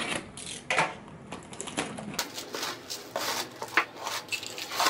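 Box cutter scraping along the packing tape of a cardboard box, then rustling of cardboard flaps and bubble-wrap packaging, with light clicks and knocks as the contents are lifted out.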